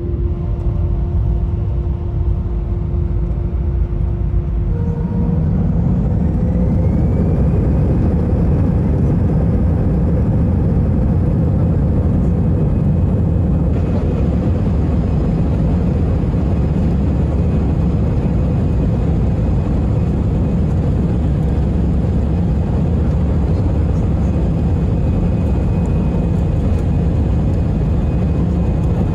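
Airbus A319 jet engines heard from the cabin over the wing. About five seconds in they spool up with a rising whine, then hold a steady high-power run with a deep rumble as the aircraft rolls along the runway for take-off.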